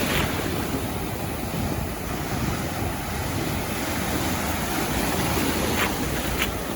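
Ocean surf washing onto a sandy beach, a steady continuous rush of breaking and receding waves, with wind buffeting the microphone.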